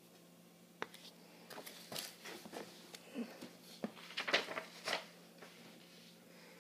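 A paper book being handled and set down: a sharp tap a little under a second in, then a run of irregular page and cover rustles and small knocks, loudest about four seconds in.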